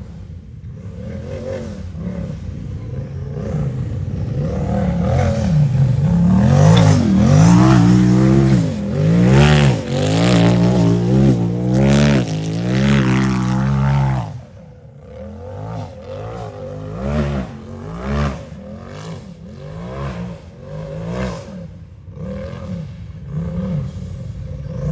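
Unlimited-class race UTV engine revving hard in quick on-off throttle blips, drawing nearer and louder over the first several seconds. After some seconds at its loudest it drops off sharply about 14 seconds in, and quieter throttle bursts go on after that.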